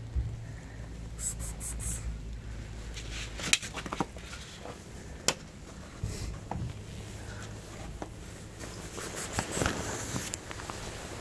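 Light plastic plates being handled and set down on a tiled ground: scrapes and rustling with a couple of sharp clicks, one about three and a half seconds in and another near five seconds.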